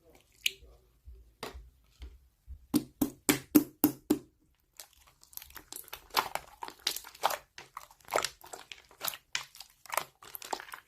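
A quick series of short clicks and taps, with a fast even run of about six taps near the first third and scattered clicks after.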